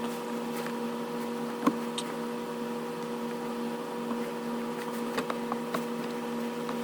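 Steady electrical-sounding hum, with a few faint light clicks and taps from handling parts while a new shifter linkage bushing is fitted; one click, a little sharper, comes a couple of seconds in.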